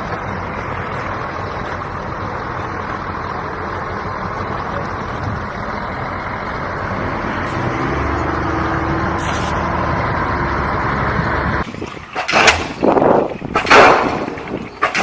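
A diesel truck engine runs steadily under a noise haze, its sound deepening about two-thirds of the way through. Near the end it gives way to three loud, sharp bangs about a second apart: a pile driver's hammer striking.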